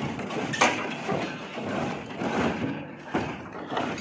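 A wooden crate scraping and sliding across a pickup's bed, with two wooden knocks, about half a second in and about three seconds in.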